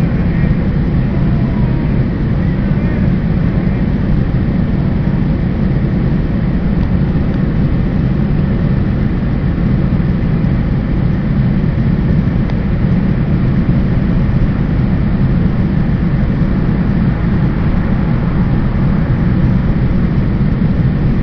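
Steady low rumble of an idling car engine, heard from inside the car's cabin.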